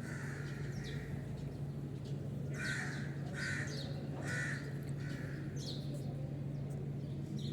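Crow cawing: one call near the start, then three harsh caws less than a second apart around the middle. Thin high chirps from a smaller bird come in once or twice, over a steady low hum.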